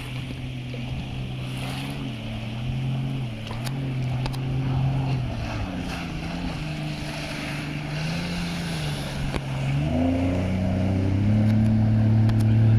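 Jet ski engine running as the craft turns on the water. Its pitch dips and rises several times with the throttle, drops sharply about ten seconds in, then climbs again and grows louder as the craft comes closer.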